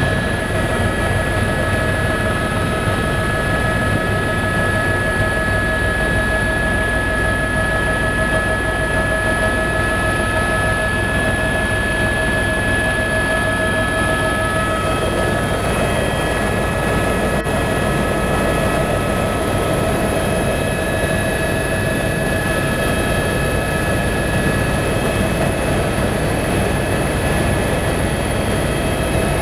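Helicopter in cruising flight heard from inside the cabin: a loud, steady engine and rotor noise with several constant whining tones held over it.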